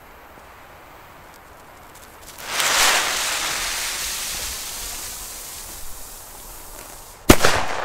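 The fuse of a Pyro-Art Kubischer Kanonenschlag, a cubic black-powder salute, catches about two seconds in and hisses, loudest at first and slowly fading. Near the end the salute goes off with one sharp, loud bang.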